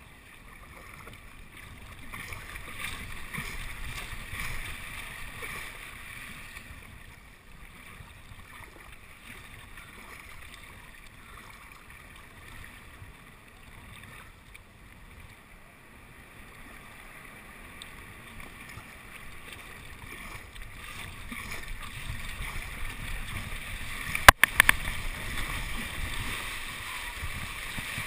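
Water sloshing and splashing around a sit-on-top kayak as it is paddled through choppy sea, with some wind on the microphone. The water noise builds near the end as the kayak enters breaking surf, and there is one sharp knock about three-quarters of the way through.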